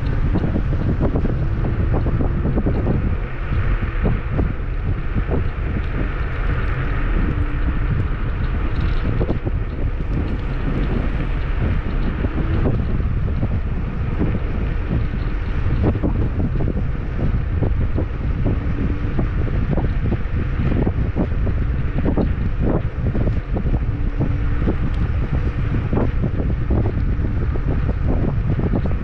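Wind buffeting the microphone while riding a Kugoo G2 Max electric scooter, with many small knocks and rattles from the ride and a faint on-and-off hum.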